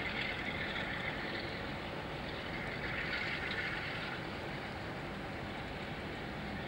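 Railway station ambience: a steady low rumble from a locomotive creeping slowly toward the platform, with two brief hissing swells, one at the start and one about three seconds in.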